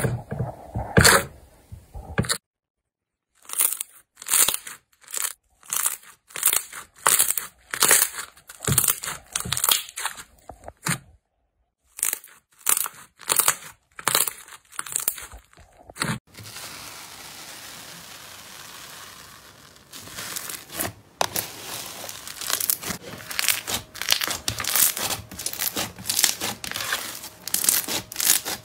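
Hands pressing and poking slime: sharp wet pops and squelches about once a second, broken by two short silences. In the last third comes dense crackling as slime mixed with foam beads is kneaded.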